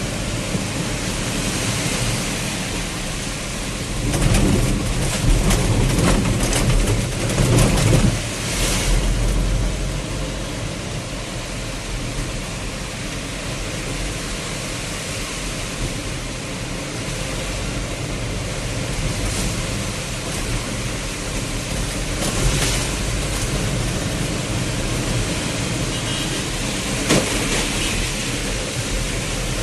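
Heavy rain with the steady noise of a vehicle driving through it, and a louder low rumble from about four to nine seconds in.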